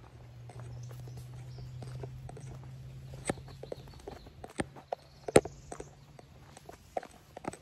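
Irregular footsteps and sharp knocks and snaps, the loudest about five seconds in, over a steady low hum that fades out about six seconds in.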